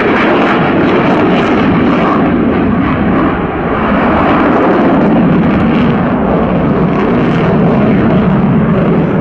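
Sukhoi Su-27's twin Saturn AL-31F turbofans at high power in flight: loud, steady jet engine noise.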